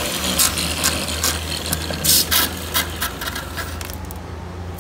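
Electric angle grinder with a sanding disc grinding a fibreglass-laminated panel in a series of short scraping passes. It stops about four seconds in, and a steady low hum runs underneath.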